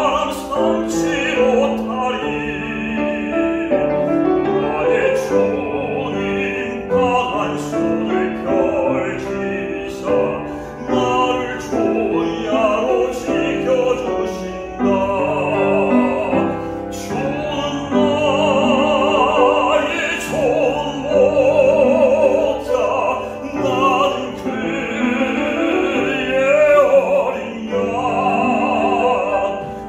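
A man singing a Korean hymn in a trained, operatic voice with a wide vibrato, accompanied by piano.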